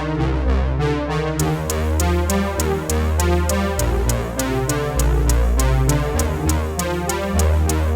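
Electronic background music with synthesizer, a deep bass line and a steady drum-machine beat; crisp high ticks join the beat about one and a half seconds in.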